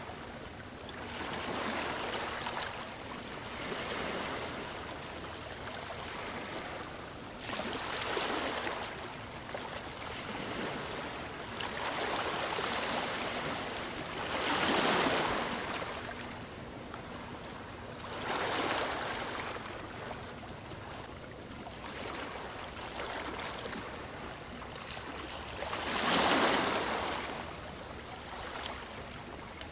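Ocean waves washing onto a shore, the surf swelling and easing back every few seconds, with the strongest surges about halfway through and near the end.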